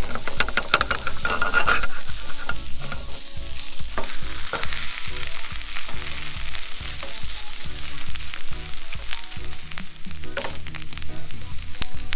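Egg-soaked bread (French toast) sizzling and frying in a small frying pan. A few sharp knocks of a utensil against the pan, about four seconds in and again near the end.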